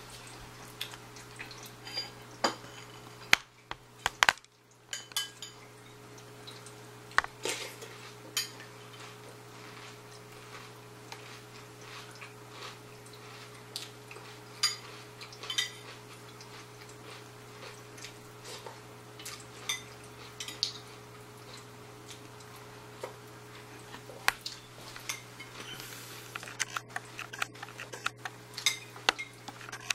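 Aquarium pump humming steadily, with many light, sharp clicks and taps scattered irregularly over it.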